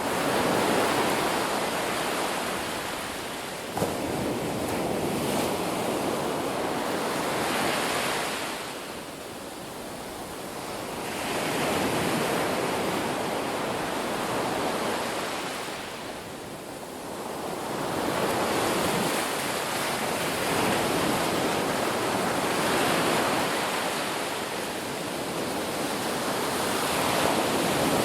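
Ocean waves breaking on a beach: a continuous surf wash that swells and recedes every several seconds, with one small click about four seconds in.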